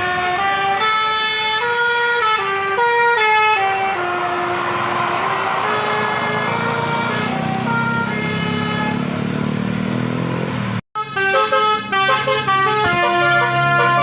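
Multi-tone telolet air horn playing a tune of stepping notes. It breaks off for an instant about eleven seconds in, then plays another run of notes.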